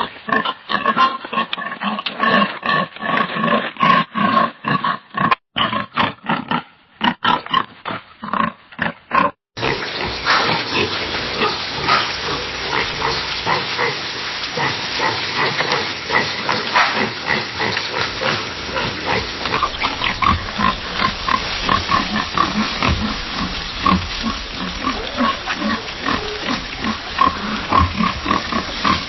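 Pigs grunting and oinking in quick repeated grunts. The first part has short grunts with brief gaps; after a sudden cut about nine and a half seconds in, the grunting runs on densely and without a break over a steady hiss.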